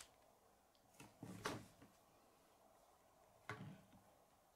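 Faint handling sounds of a plastic K'nex model being set down on a wooden tabletop: a few soft knocks about a second and a half in, and one more about three and a half seconds in.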